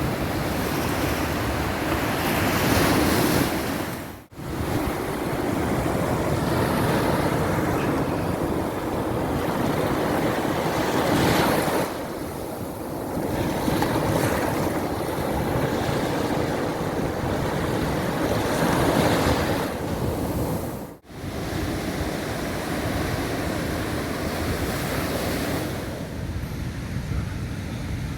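Mediterranean sea waves breaking and washing onto a sandy beach in a steady, swelling surf, with wind buffeting the microphone. The sound dips out briefly twice, about four seconds and about twenty-one seconds in.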